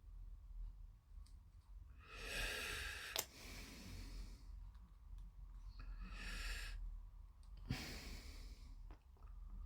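Faint breathing close to the microphone, three breaths about a second long, with a couple of small sharp clicks from plastic model kit parts being handled, over a low hum.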